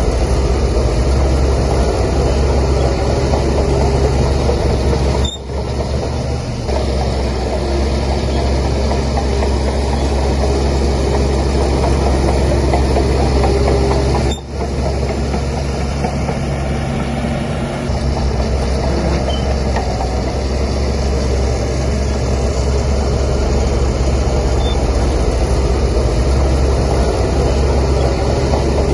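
Heavy diesel earthmoving machinery, a Shantui DH17C3 bulldozer working alongside dump trucks, running steadily with a deep engine drone. The sound drops out for a moment twice, about five and fourteen seconds in.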